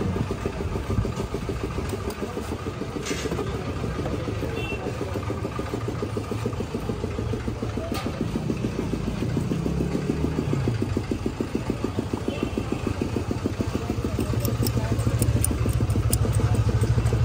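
An engine idling close by with a fast, even pulse. In the last few seconds a metal spoon clinks several times against a glass of ice as a drink is stirred.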